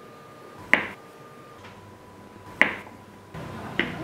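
Kitchen knife cutting through a soft pork pâté loaf and knocking on a wooden cutting board: three sharp knocks, a second or two apart.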